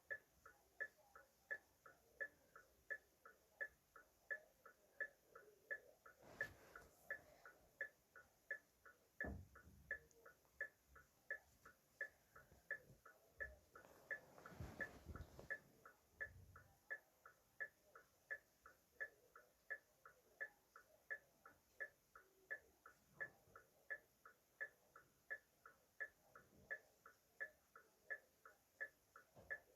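Car hazard-light flasher relay clicking in a steady, even tick-tock, about two and a half clicks a second. A few faint low thumps and rustles sound in between.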